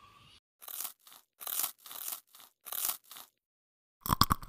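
Crispy deep-fried pork bagnet skin being bitten and chewed: a quick run of short, sharp crunches, a brief pause, then louder, heavier crunches near the end.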